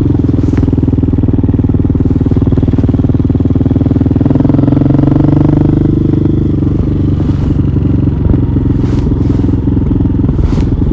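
Hawk 250cc motorcycle engine running on the move, picked up by a mic inside the rider's helmet; it revs up about four seconds in and eases off again around six seconds.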